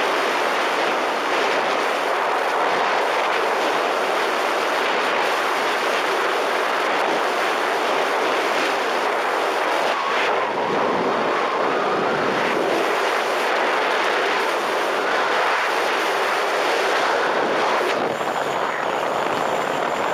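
Speedboat running at speed across open water: a loud, steady rush of wind, water and engine noise blended together, unchanging throughout.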